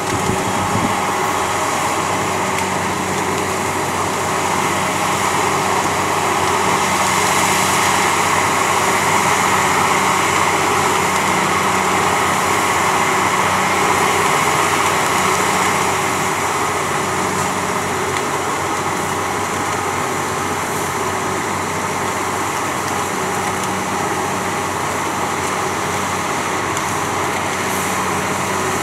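Diesel engines of a rotary snow blower and a dump truck running steadily while the blower casts snow through its raised chute into the truck bed. The din swells a little from about six seconds in and eases again past the middle.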